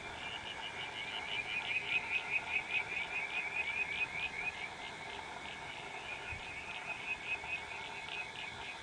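A chorus of frogs calling in fast, evenly repeated high chirps, loudest over the first half and then fainter.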